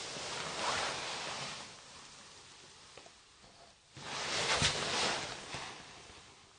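Two swells of soft rustling noise, the second with a faint low thump in it about four and a half seconds in.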